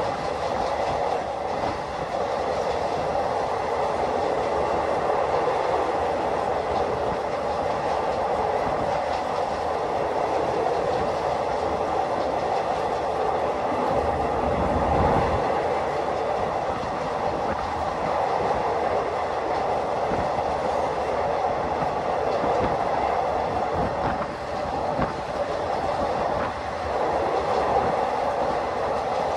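Passenger train running at speed on elevated track, heard from an open window of the coach: a steady rush of wheel and rail noise with some clickety-clack.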